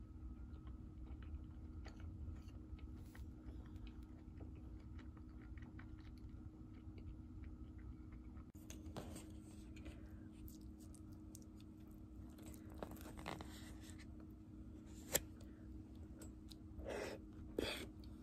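Faint eating sounds: chopsticks picking through a grilled-beef rice bowl in a plastic takeout container, with light clicks, one sharp tap about fifteen seconds in and two short noises near the end, and chewing. A steady low hum lies underneath.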